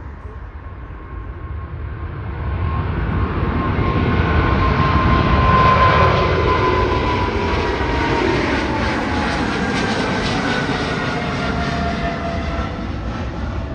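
Boeing 777-300ER's twin GE90-115B turbofans at takeoff thrust as the jet climbs out overhead: a broad rumble that builds to its loudest about six seconds in, then slowly fades, with a fan whine sliding down in pitch as it passes.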